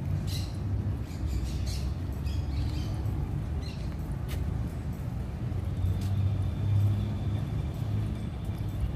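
Steady low rumble of city traffic or wind, with footsteps on a wooden boardwalk in the first few seconds and a faint steady high tone joining about six seconds in.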